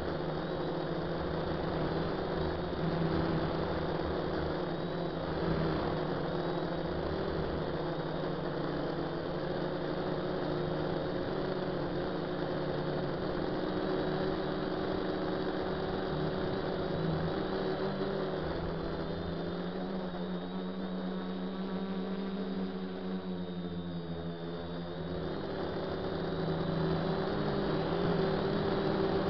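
DJI F450 quadcopter's four brushless motors and propellers whirring steadily in flight, heard from the onboard camera. About twenty seconds in, the pitch wavers and shifts as the throttle changes, then settles again.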